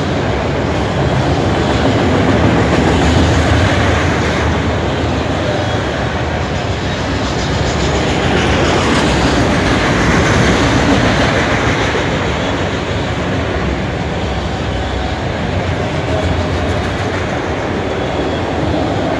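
Freight train of multilevel autorack cars rolling past on steel wheels, a steady rumble and rattle that swells a little about halfway through.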